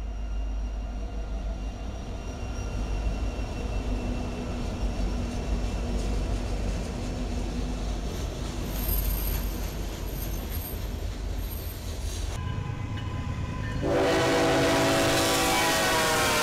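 Diesel freight locomotives rumbling past at track side with steady engine and rail noise. Then, about fourteen seconds in, a locomotive air horn blows loudly, a chord of several steady tones.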